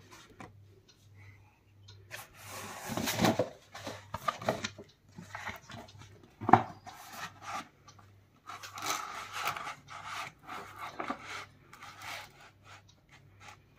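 A roll of sheet media rustling and rubbing as it is unrolled by hand and slid into a cutting plotter, in two stretches of handling, with one sharp click about six and a half seconds in.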